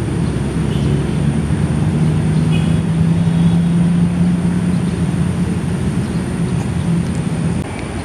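A motor running with a steady low hum that swells toward the middle and drops off a little shortly before the end, with a few faint short high chirps over it.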